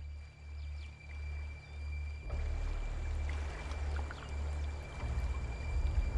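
Water sloshing and rippling around a swimming beaver, setting in about two seconds in, over a deep throb that pulses about every half second.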